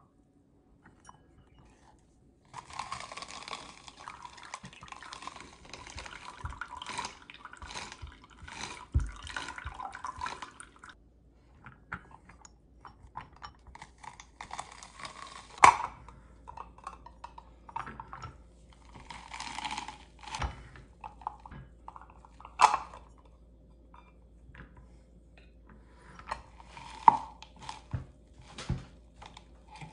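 Manual lever juice press squeezing a pomegranate half: juice squishing and spattering into the glass in several stretches, the first and longest lasting several seconds, with a few sharp clinks of the press's metal cone and cup.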